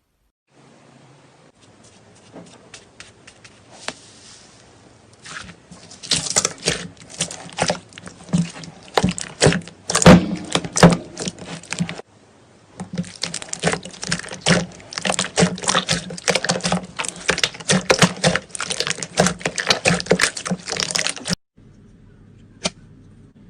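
Slime being squeezed and worked by hand, making rapid wet clicks and crackling pops. The clicking starts sparse, turns dense about six seconds in, pauses briefly around the middle, then runs thick again before stopping abruptly near the end.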